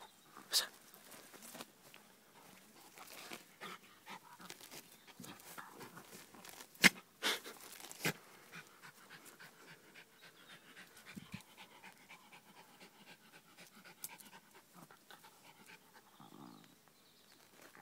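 Jack Russell terrier panting and snuffling as it noses a stone through the grass. A few sharp knocks are mixed in, the loudest about seven seconds in.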